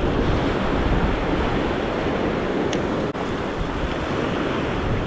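Small surf waves washing up and over a sandy beach, with wind buffeting the microphone.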